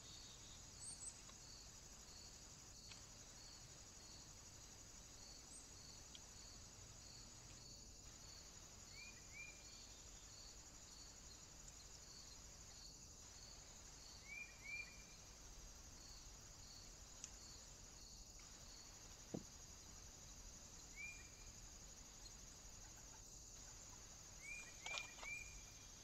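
Faint insect chorus: a steady high-pitched trill, with a regular chirp about twice a second through the first half. A few short, quick bird calls come in twos and threes, and there is a single sharp tick near the middle.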